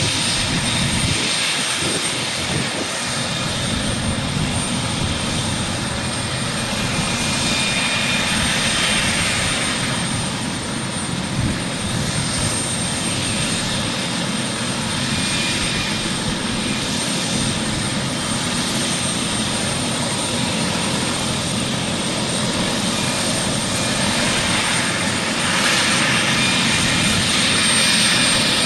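Twin Allison C20F turboshaft engines of an AS355F2 Ecureuil 2 helicopter running on the ground with the rotors turning. It is a steady rush of rotor and turbine noise with a thin high whine that holds constant, growing slightly louder near the end.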